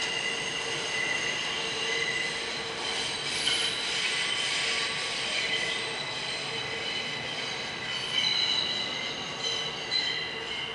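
Wheels of an R160A subway train squealing on the rails as it runs away down the tunnel: several high, steady, whistling tones over the running rumble.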